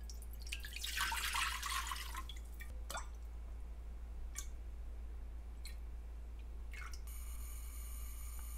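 A short splash of liquid, then four separate drips spread over the next few seconds. A steady high-pitched tone comes in near the end.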